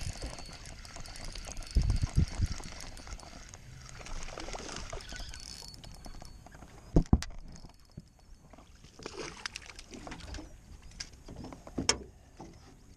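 A bass being fought and landed from a small boat: splashing where the line meets the water and handling of the spinning reel over a steady wash of water noise. A few sharp knocks come through, the loudest a pair about seven seconds in.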